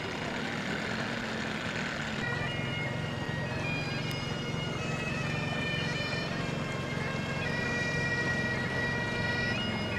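Bagpipes playing: a steady drone under a changing chanter melody, coming in about two seconds in after a steady rushing noise.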